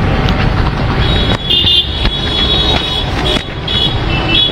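Road traffic noise: a steady rumble of passing vehicles, with short high-pitched tones about a second in and near the end.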